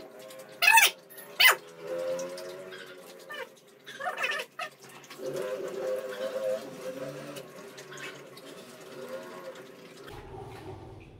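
A dog barks sharply twice, about a second in, while a Rottweiler eats dry kibble from a stainless steel bowl.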